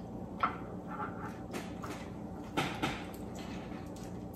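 Cooked shrimp being peeled by hand: a few short soft clicks and crackles of shell, two of them close together near the end, over a low steady room hum.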